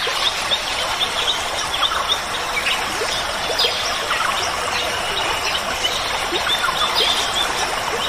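Tropical rainforest ambience: many short bird chirps and whistles, some thin and high, scattered over a dense steady hiss.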